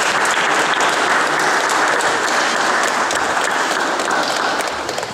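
Audience applauding: steady, dense clapping that thins out and dies away near the end.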